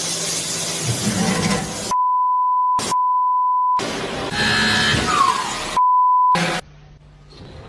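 Censor bleep: a steady, pure beep tone cuts in three times, about two, three and six seconds in, each lasting half a second to a second, with all other sound muted under it. Between the beeps there are stretches of loud, rough noise.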